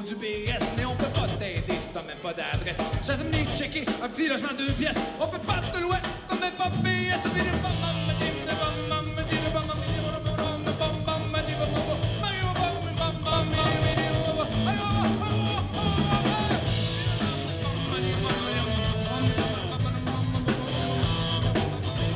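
Live rock band playing a song: electric guitars, drum kit and a male singer, with the bass and drums coming in fully about seven seconds in.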